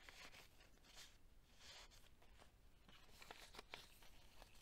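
Faint rustling of paper as the pages and a folded flip-up of a handmade paper journal are handled and turned: a couple of soft swishes, then a few light taps near the end.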